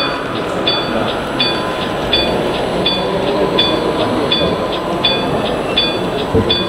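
A model level-crossing warning bell ringing steadily, with about one and a half short, high strikes a second. Under it is the murmur of a crowd.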